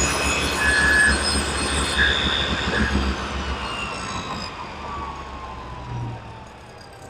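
Table saw with a dado blade stack spinning down after being switched off. Its whine fades and slides down in pitch as the blade slows.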